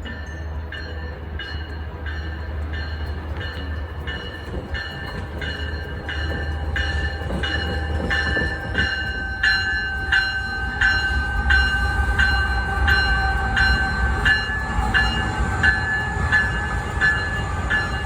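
Metrolink passenger train arriving: a bell rings steadily about one and a half strokes a second, getting louder as the train draws near, over a low rumble of the locomotive and cars that swells about halfway through.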